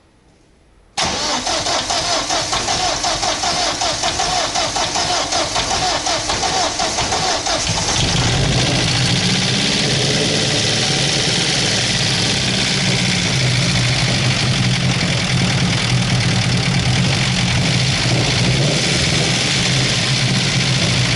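Ford Sierra engine being cranked by the starter for about seven seconds, catching about eight seconds in and then running steadily. It is an engine that the owner says knocks from the top end and runs on three cylinders after lying unused for four years.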